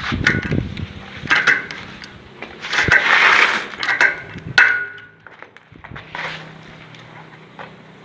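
Scattered knocks and scraping from handling materials, with a louder rough burst about three seconds in and a short falling whine soon after.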